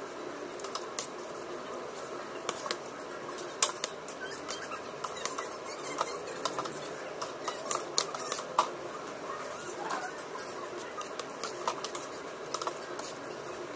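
Eating sounds: a spoon clicking and scraping against a plate, with irregular sharp clicks over a steady background hiss.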